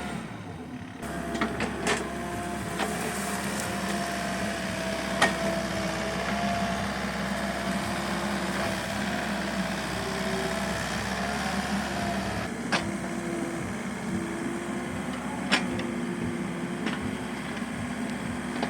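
Excavator running: a steady engine drone with a wavering whine over it, and several sharp metallic knocks scattered through.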